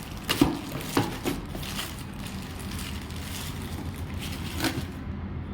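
A few sharp knocks and clicks of concealed door closer kit parts being handled and taken out of the packaging, the loudest about half a second in, over a steady low hum.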